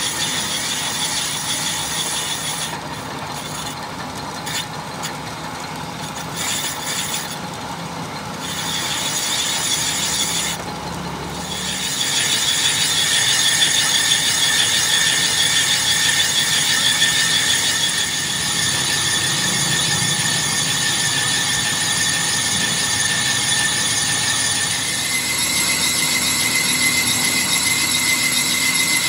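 Metal lathe running while a boring bar cuts the inside of a spinning steel motorcycle-hub workpiece: a steady machining noise with high-pitched cutting tones. It grows louder about twelve seconds in, and the high tones shift in pitch near the end.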